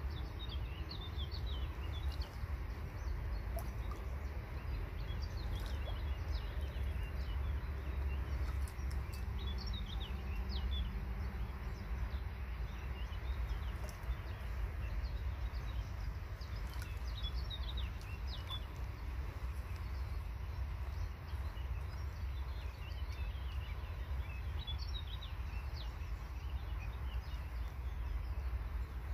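Small birds chirping in quick clusters of short high notes, on and off, over a steady low rumble.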